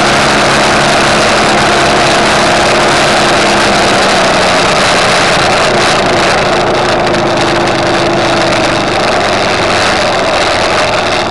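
A vehicle's engine running loud and steady, heard from on board as it travels along a gravel road, with its note shifting slightly about six seconds in.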